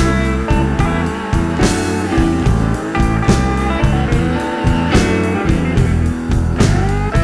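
Swamp blues band playing an instrumental passage: electric slide guitar lead, its notes gliding in pitch, over bass and drums with a steady beat.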